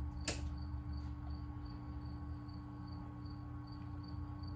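High, regular insect chirping, about four short chirps a second, over a steady low hum, with a single click about a quarter second in.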